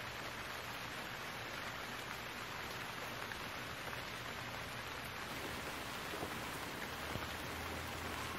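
Wood fire burning: a steady hiss with a few faint crackles, the loudest about 6 and 7 seconds in.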